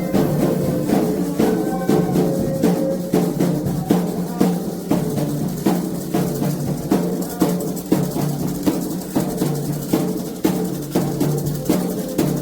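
Candomblé atabaque hand drums playing a steady, fast ritual rhythm of dense strikes, with faint singing in the first couple of seconds.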